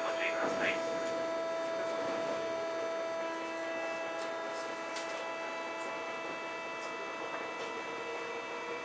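Tokyo Metro 8000 series train's armature chopper control (Mitsubishi thyristor chopper) whining with several steady pitches, heard from inside the car directly above the chopper unit. The mix of tones shifts about 3 seconds in and again near the end.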